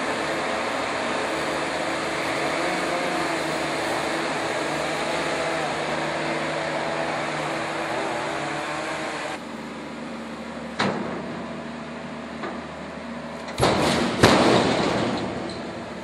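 Boxer 532DX mini skid steer running under load as it carries logs in its grapple, the engine and hydraulics humming with a wavering pitch. After about nine seconds it gets quieter, and there is one sharp knock, then near the end a burst of heavy knocks and rattling as logs drop into a trailer.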